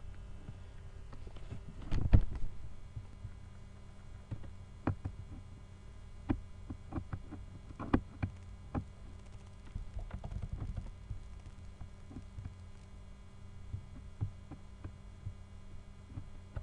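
Irregular clicks and taps of typing on a computer keyboard over a steady low hum, with a louder thump about two seconds in.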